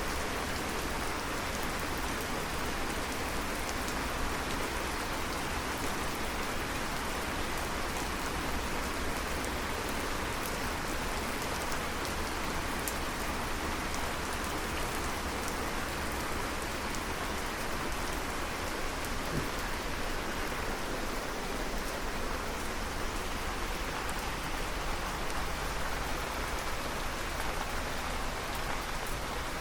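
Steady rain falling, a dense hiss of drops with faint individual drop ticks.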